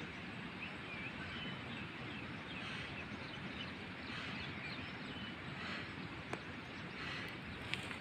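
Quiet outdoor ambience: a steady hiss with scattered faint bird chirps, and two sharp clicks near the end.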